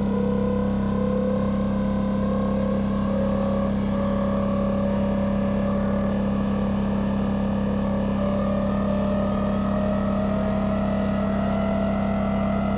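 Electronic music build-up: a held low synth drone under a second synth tone that rises slowly in pitch, with no beat.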